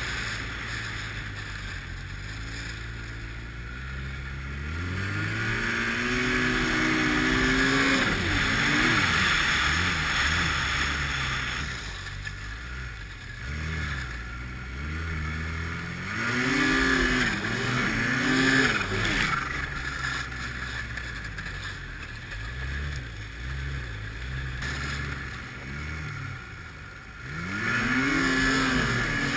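Arctic Cat snowmobile, a 240 hp machine, running across deep snow and revving up hard three times, its engine pitch climbing and then falling as the throttle comes off. A rushing hiss rises with each burst.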